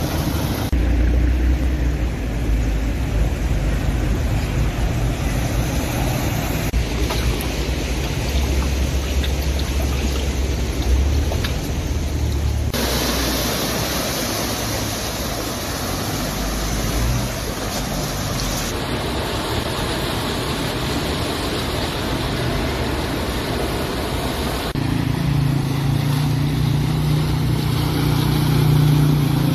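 Motor vehicles driving through deep floodwater: engines running under the splash and rush of water pushed aside by the wheels, the sound changing every few seconds. Near the end a motor scooter's engine gives a steady hum as it is ridden through the water.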